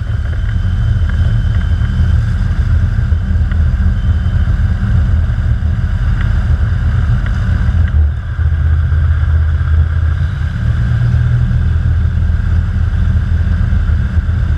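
Kitfox IV floatplane's engine and propeller running steadily while the floats plough through the water, with spray rushing and splashing against them. The engine drone dips briefly about halfway through.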